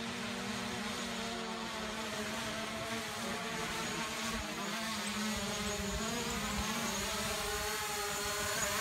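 Small quadcopter drone's propellers buzzing steadily with a wavering pitch, getting a little louder near the end as it comes down close.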